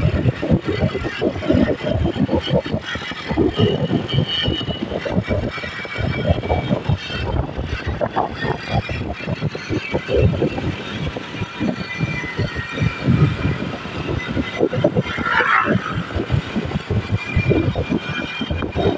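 Moving vehicle on the road, with gusty wind buffeting the microphone over the road and engine noise.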